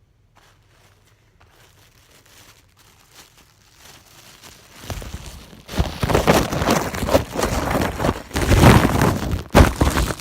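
Crinkling and rustling close to the microphone. It starts faint, then becomes loud and dense about five seconds in, in uneven surges.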